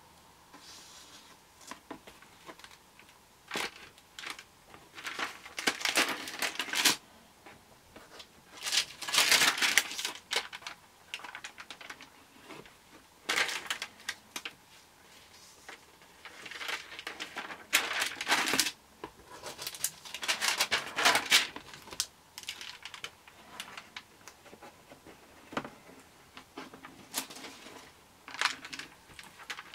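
Pages of a Lighthouse stamp stock album and its thin translucent interleaving sheets rustling and crinkling as they are turned and handled, in a series of irregular bursts with quieter pauses between.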